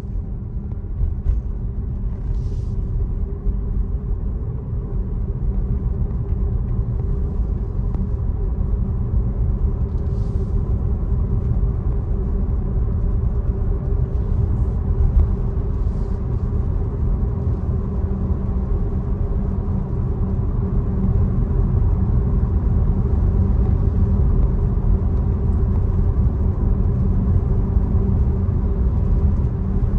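Steady low road and tyre rumble of a Tesla electric car driving, with a faint steady hum above it, growing a little louder over the stretch.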